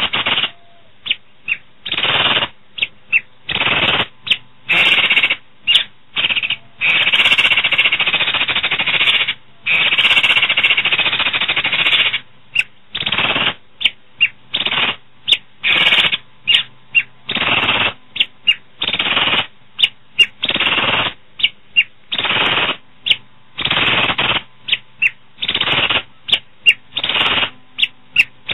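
Asian pied starling (jalak suren) singing a harsh, rattling chatter in stop-start bursts: many short ones and a few long runs of two seconds or more.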